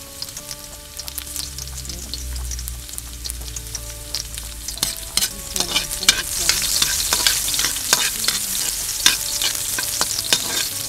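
Onion and garlic sautéing in hot pork lard, sizzling, while a utensil stirs and clicks against the pan. The sizzle grows louder about six seconds in.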